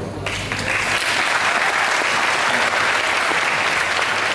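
Audience applauding, the clapping starting about a quarter second in as a man's speech breaks off and going on steadily, over a faint steady low hum.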